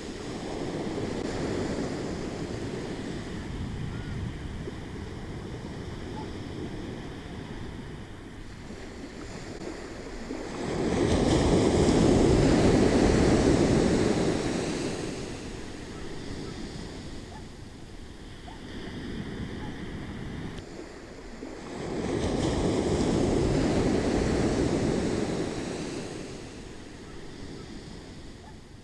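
Ocean waves breaking and washing on the shore, rising and falling in slow surges; the two biggest break about eleven and twenty-two seconds in, with quieter wash between.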